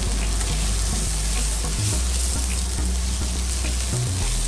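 Chopped vegetables sizzling as they are stir-fried in a metal pan, a silicone spatula scraping and tossing them, over a steady low hum.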